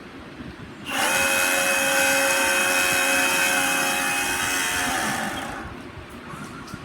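Small electric motor whining at a steady high speed: it starts suddenly about a second in, runs evenly for about four seconds, then winds down with falling pitch.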